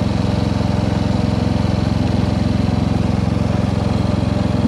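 MTD lawn tractor engine running steadily under way, a fast, even pulse at constant speed.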